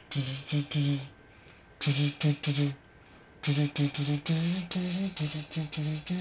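A voice singing a short wordless intro jingle in short, evenly pitched syllables: two groups of three with pauses between, then a longer, quicker run.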